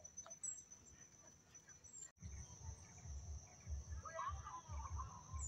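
Insects in the forest trilling steadily on one high tone. After a cut about two seconds in, soft low thumps repeat, and a few faint chirping calls come near the end.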